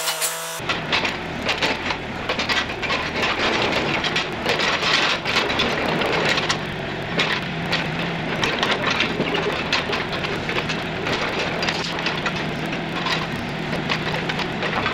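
Dry hay rustling and crunching: a dense, continuous run of small crackles and snaps.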